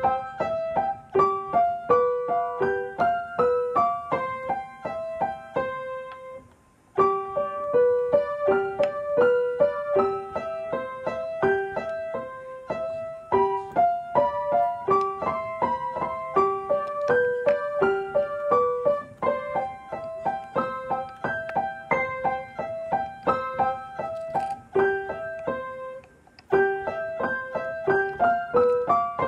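Background piano music: a steady run of quick, light notes, with two short pauses.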